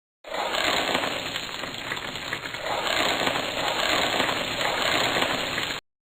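A sound-effect clip played back: a dense crackling hiss with no clear pitch. It starts abruptly and cuts off abruptly after about five and a half seconds.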